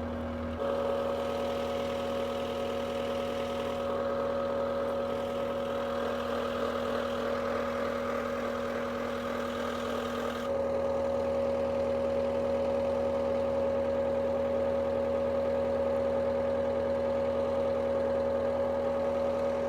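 Diesel engine of a CAT skid steer running at a steady speed, with a steady whine over its hum. The sound shifts abruptly about half a second in and again about ten seconds in.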